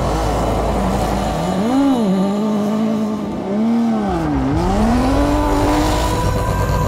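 Rally car engine being revved: two quick rises and falls in revs, a drop about four and a half seconds in, then the revs climb again.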